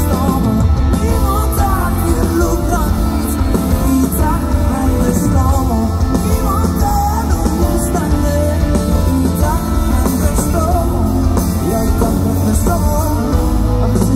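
Amplified live band music heard from the crowd: a male singer over electric guitar and band, with a heavy bass.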